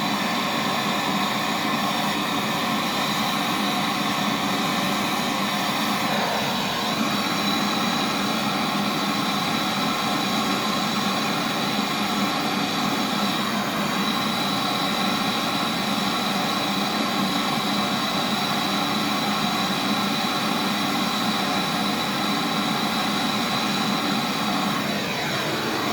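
Brazing torch flame burning with a loud, steady hiss while copper pipe joints are brazed on a fridge's refrigeration circuit. The pitch briefly sweeps downward about six seconds in and again near the end.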